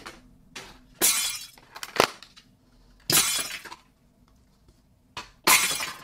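Plastic packaging crinkling and tearing in three short, crackly bursts, with a couple of sharp clicks between them.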